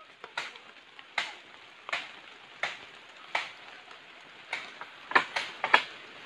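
Blade chopping into bamboo stems: sharp strikes at a steady pace of about one every three-quarters of a second, then a quicker run of blows near the end.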